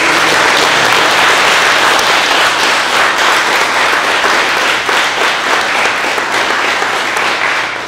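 A group of people applauding: dense, steady clapping that eases off slightly near the end.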